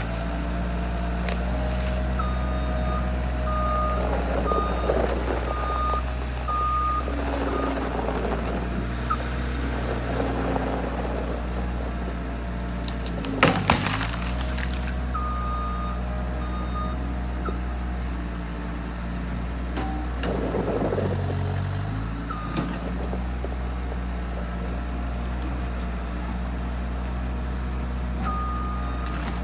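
Skid loader engine running steadily under work, its reverse alarm beeping in several runs as the machine backs up. A sharp double crack sounds about halfway through.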